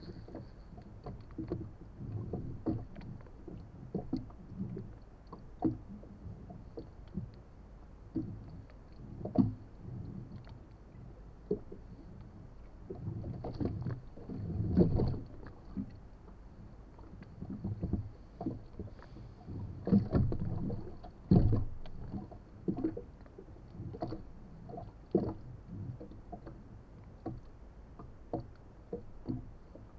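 Small waves lapping and slapping against the hull of a drifting inflatable boat, coming and going irregularly, with a few sharp low knocks.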